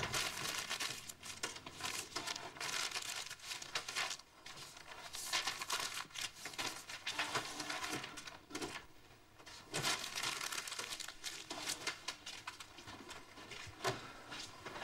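Sheets of printer paper being grabbed and crumpled: an irregular crackling rustle with sharper crunches now and then.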